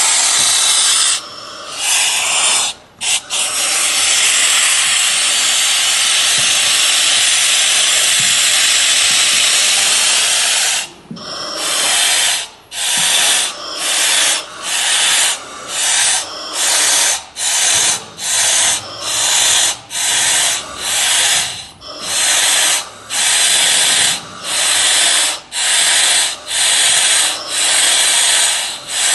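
Oxygen hissing from a small resuscitation mask on a hose, held over a smoke-affected kitten's face. It runs as one steady hiss for about ten seconds, then comes in short regular puffs, a little more than one a second.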